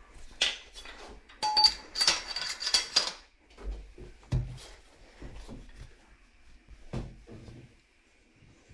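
Metal tools and copper pipe being handled: a quick run of clinks and clatter, some ringing briefly, then a few scattered knocks.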